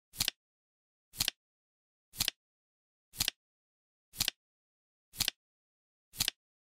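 Flip clock's cards clicking over once a second, each a short, crisp double click, seven in all, with silence between them.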